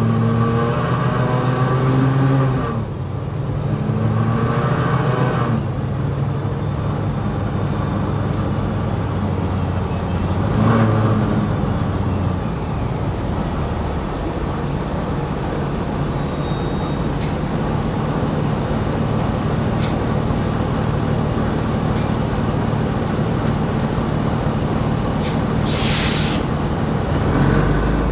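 New Flyer XD60 articulated diesel bus under way: the engine pitch rises, drops at a gear change and rises again as it pulls away, then runs steadily. A short hiss of air sounds near the end.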